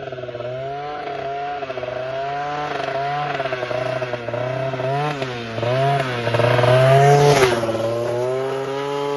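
Piaggio Zip SP scooter's two-stroke engine, with a 172cc Malossi kit and a Jollymoto exhaust, revving. Its pitch rises and falls again and again, and it is loudest about seven seconds in.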